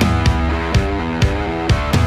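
Rock-style intro music with a steady drum beat about twice a second under changing guitar notes.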